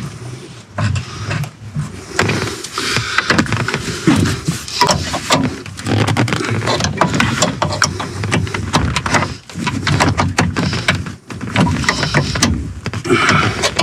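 Small hard parts clicking, rattling and knocking in quick irregular succession as a fitting is handled and prised at, trying to work loose a piece that is fixed in place.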